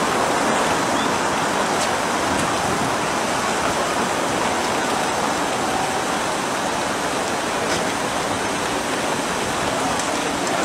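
Steady rushing outdoor background noise, even throughout, with no distinct events standing out.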